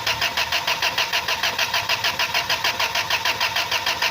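Rebuilt engine being cranked over by its starter motor, a steady rhythmic churn of about six compression pulses a second that does not catch and run.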